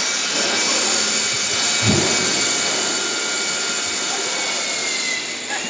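Aluminium-profile CNC machining center running, its high-speed spindle giving a steady high whine over a hiss. The whine dips slightly in pitch near the end, and there is a dull thump about two seconds in.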